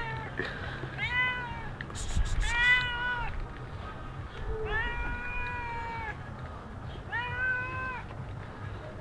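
A stray cat meowing over and over: five meows, each rising and then falling a little in pitch, the one about five seconds in held the longest.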